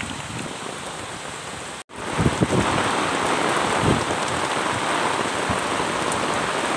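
Steady rain pattering on wet ground and puddles. The sound cuts out for a moment about two seconds in, comes back louder, and a few low thumps stand out soon after.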